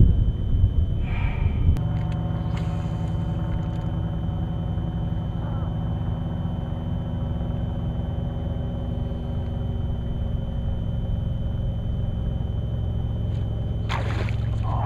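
Steady hum with a low rumble from the bass boat's electric trolling motor, loudest in the first two seconds. Near the end comes a short whir falling in pitch as a cast goes out, the fishing reel's spool spinning.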